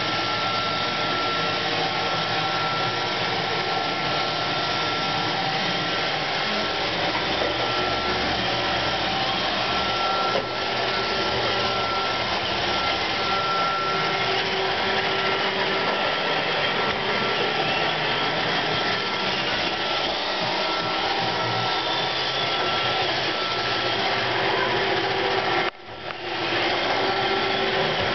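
Roomba 531 robot vacuum running: a steady whir with a thin, constant high whine. It drops out for a moment near the end, then carries on.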